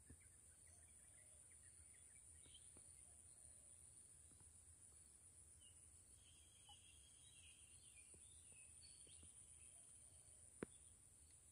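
Near silence: faint outdoor ambience with a steady high-pitched insect drone and a few faint bird chirps. A single sharp click comes near the end.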